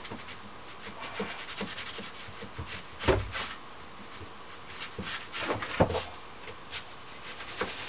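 Hand scrubbing of a surface: repeated rubbing strokes, with a couple of louder knocks about three and six seconds in.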